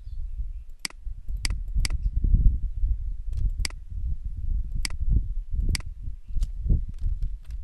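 Computer mouse clicking: about eight sharp single clicks spaced irregularly, with a few fainter ones near the end, over a low uneven rumble.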